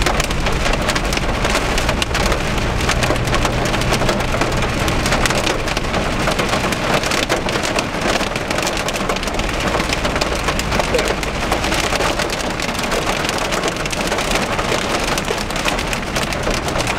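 Hail and heavy rain pelting a car's roof and windshield, heard from inside the cabin: a dense, steady clatter of impacts over the hiss of rain. A low hum from the car runs underneath for the first few seconds.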